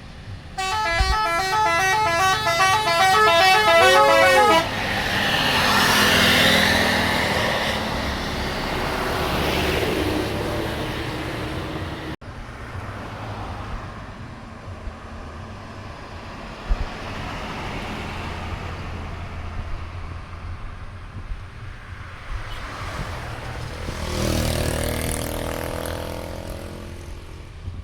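Bus "telolet" multi-tone horn playing a quick, stepping run of notes for about four seconds. It is followed by steady engine and road noise from passing traffic, with an engine revving near the end.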